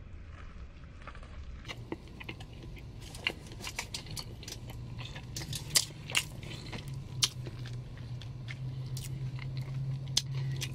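A person chewing a mouthful of cheeseburger with lips closed: wet mouth clicks and smacks come irregularly. A low steady hum rises underneath from about four seconds in.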